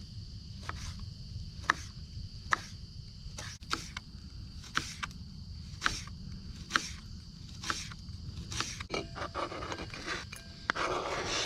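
Knife mincing shallots on a cutting board: single sharp chops about once a second, turning to quicker chopping and scraping of the board near the end.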